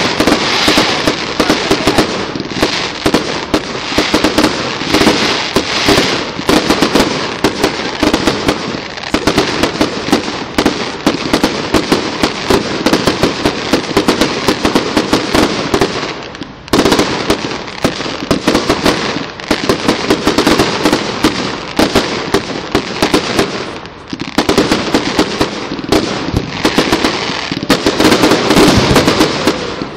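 Fireworks display: a dense, continuous barrage of bangs and crackling bursts, with brief lulls about halfway through and again a few seconds later, at its loudest near the end.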